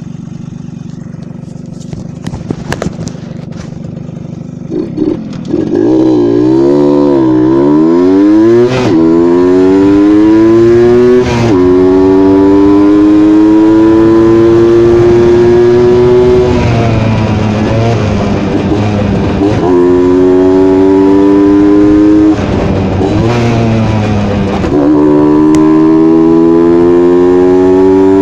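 Suzuki AX100 two-stroke single-cylinder motorcycle engine running with its air filter cover off. It idles at first, then about six seconds in it is revved up and held at high revs with the pitch slowly climbing, and twice the throttle is let back and opened up again.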